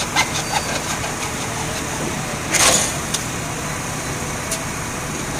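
Engine of the concrete pump and ready-mix truck running steadily during the slab pour. A short, louder hissing surge comes a little past halfway.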